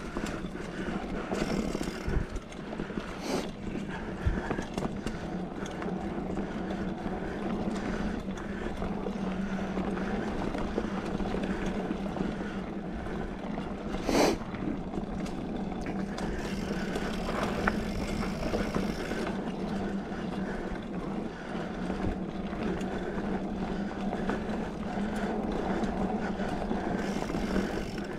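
A 2020 Specialized Fuse mountain bike with 27.5+ tyres rolling along a dirt trail: steady tyre and ride noise with a low hum, small rattles and clicks, and one sharp knock about halfway through.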